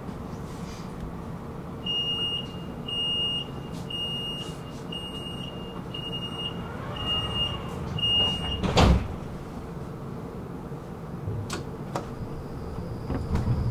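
Tram door warning signal: seven short high beeps, about one a second, then a loud clunk as the doors shut, over the steady hum of the tram.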